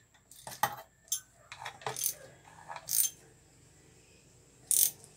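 Irregular sharp metallic clicks and clinks from a socket wrench with a 10 mm socket working the bolts that fasten the housing onto a Pedrollo electric water pump, about eight or nine in all, the loudest a short cluster near the end.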